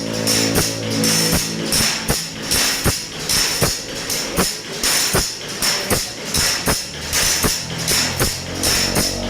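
A file rasping across the teeth of a large hand saw in quick, even strokes, about two to three a second, with a bright metallic jingle to each stroke.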